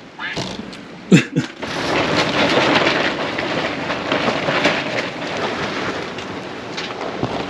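Heavy rain pattering hard on tarps and the RV, coming on about two seconds in after a couple of sharp knocks.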